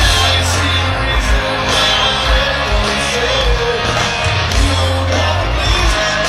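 Live rock band playing through a festival PA, with electric guitars, a drum kit and a lead vocal, heard from in the crowd.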